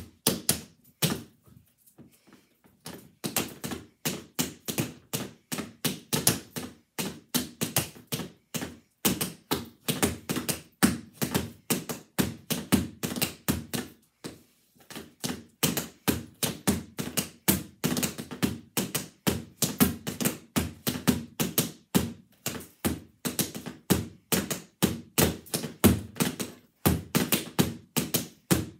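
Tap shoes striking a portable tap board in quick, rhythmic runs of sharp taps, pausing briefly about two seconds in and again around the middle.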